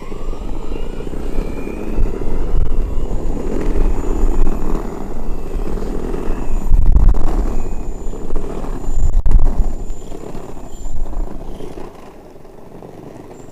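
Electric skateboard riding over pavement: a gusty, rumbling roll of wheels and wind buffeting the microphone, swelling and easing in waves. A faint whine rises in pitch over the first couple of seconds, and the rumble eases about a second and a half before the end.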